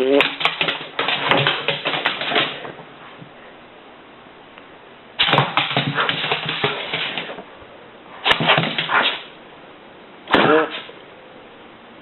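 A dog vocalizing in four bursts of one to two and a half seconds each. Most open with a rising pitched cry that breaks into rough, rapid crackling.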